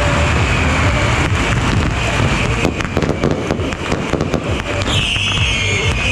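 Aerial fireworks and firecrackers going off in a dense, continuous barrage: a steady rumble packed with sharp cracks and bangs, thickest in the middle. A high, slightly falling tone comes in about five seconds in.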